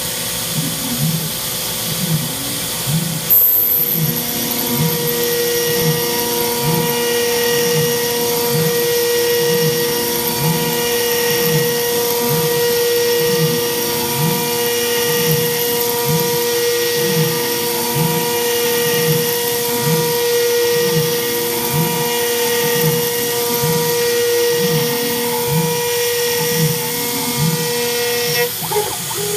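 CNC spindle at 18,000 rpm driving an Onsrud end mill through 6061-T6 aluminium. It gives a steady, high cutting whine, with a lower tone that rises and falls about once a second. A brief knock comes about three seconds in.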